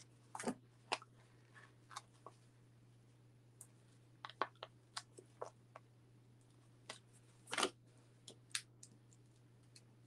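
Faint, scattered paper-crafting handling noises: small clicks, taps and crinkles as foam adhesive dimensionals are peeled from their sheet and a cardstock piece is pressed onto a card, with a short rustle about three quarters of the way through. A low steady hum runs underneath.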